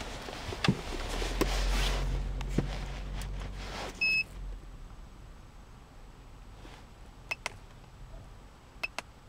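Short electronic beep from a KD900 remote maker about four seconds in, as the unit switches on, followed near the end by a few quick key clicks and short key beeps as its menu buttons are pressed. Before the beep, rustling handling noise with a low hum and a few clicks.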